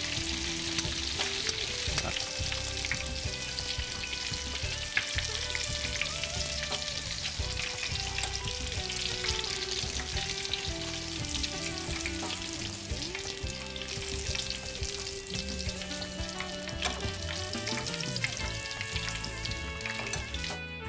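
Breaded meatballs deep-frying in hot oil in a stainless steel pan: a steady crackling sizzle of bubbling oil that stops just before the end.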